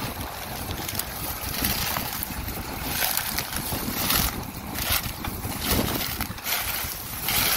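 Farm tractor engine running under load as it drags a ripper through dry sugarcane trash, with gusty wind noise on the microphone.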